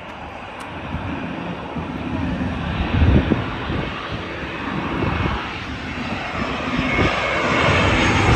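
Twin-engine jet airliner flying low overhead on final approach to land, gear down: a rushing engine noise that grows steadily louder as it nears.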